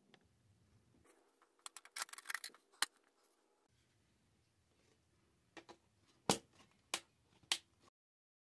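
Plastic parts of a Matchbox Park-N-Play Garage playset handled and knocked together: a cluster of rattling clicks about two seconds in, then several sharp plastic clacks near the end before the sound cuts off.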